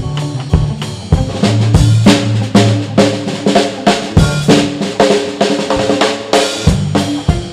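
A blues band playing a hard-driving number, with the drum kit's snare and bass drum hitting out the beat over a bass line and other instruments.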